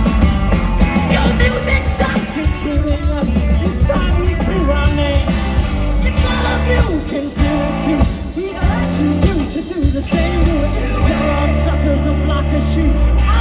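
Live rock band in full song: electric guitars and drums under a lead singer, loud through the stage PA as heard from the crowd.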